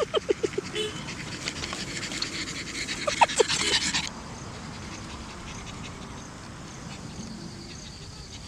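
A pug panting fast and hard, close up. About four seconds in it cuts off suddenly, leaving only a quieter steady background.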